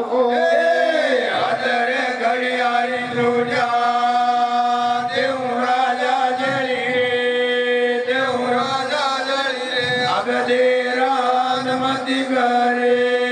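A man chanting a devotional verse in Gavri style, amplified through a hand-held microphone, over a steady held drone, with soft low beats every second or so.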